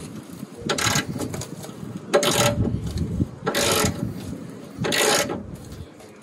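A ratcheting spanner on a rusty Land Rover Defender 110 tow bar bolt, clicking in four short bursts about a second and a half apart as the bolt is worked loose.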